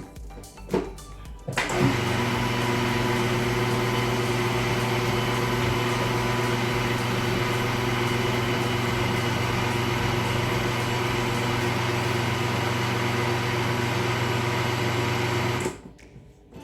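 Electric kitchen blender switched on a couple of seconds in and running steadily at one speed, blending a liquid pizza batter, then shut off suddenly near the end. A few short knocks come before it starts.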